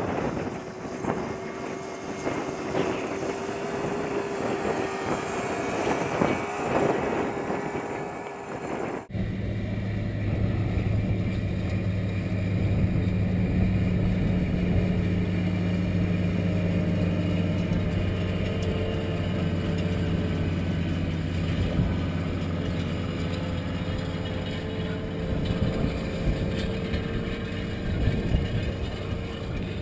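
International Harvester 3388 articulated tractor's six-cylinder turbo-diesel engine working under load while pulling a harrow across a field. After an abrupt cut about nine seconds in, the engine is a steady low drone.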